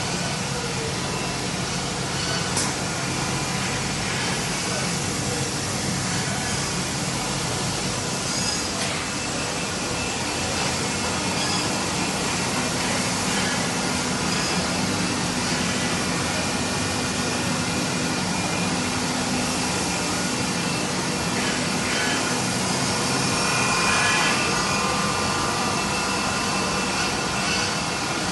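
2007 Hermle C 30 U five-axis vertical machining center running with coolant spraying in its enclosure: a steady hiss with a few constant hums and whines.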